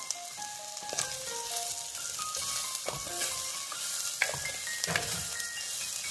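Sliced shallots and green chillies frying in hot coconut oil in a clay pot, sizzling steadily as a spatula stirs and scrapes the pot bottom several times. The shallots are being sautéed until they start to wilt.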